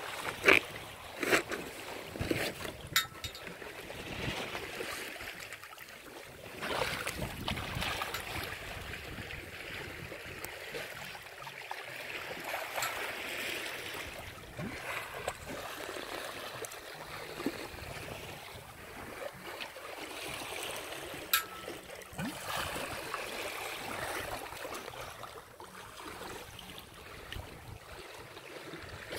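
Water rushing and splashing along the hull of a sailboat under way, with a few sharp clicks, the loudest about half a second in.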